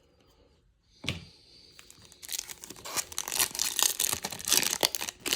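Wrapper of a Topps Chrome Update baseball card pack being torn open and crinkled: near quiet at first, a single click about a second in, then dense crackling and crinkling from about two seconds in.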